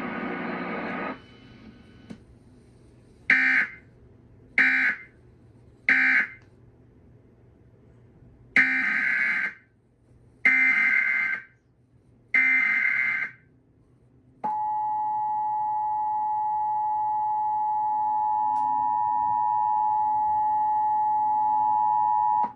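Emergency Alert System digital data bursts: three short screeching end-of-message bursts, then three longer header bursts announcing the next alert. These are followed from a bit past halfway by the EAS two-tone attention signal, two steady tones held together for about eight seconds.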